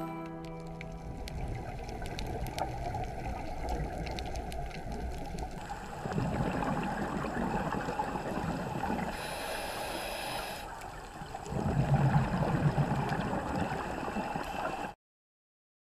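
Muffled underwater sound through a GoPro's waterproof housing: a steady rumble with the gurgling of scuba divers' exhaled regulator bubbles, with louder pulses of bubbling about twelve seconds in. The tail of a piece of music fades at the start, and the sound cuts off abruptly near the end.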